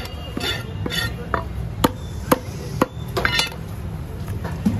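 Heavy fish-cutting knife chopping rohu on a wooden log block: sharp knocks about half a second apart in the middle, and another near the end, with scraping strokes in between. A steady low rumble runs beneath.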